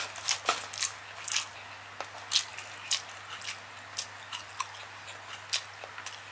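Close-miked eating of Cajun seafood and rice: chewing with irregular sharp, clicky mouth sounds and crunches, over a steady low hum.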